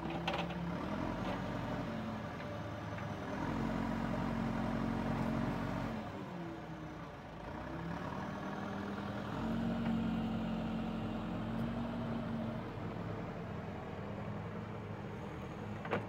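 JCB 3CX backhoe loader's diesel engine running while the backhoe digs. The engine note rises and holds for a few seconds twice, about three seconds in and again near ten seconds, as the hydraulics take load.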